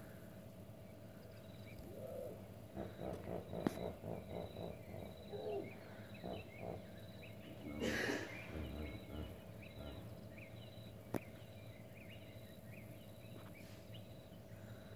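Common hippopotamus calling: a run of rhythmic grunting honks beginning about two seconds in, building to the loudest call near the middle and then dying away. Crickets chirr steadily underneath.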